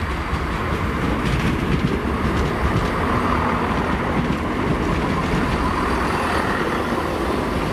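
Class 170 Turbostar diesel multiple unit running slowly into the platform, a steady rumble of its underfloor diesel engines and wheels on the rails.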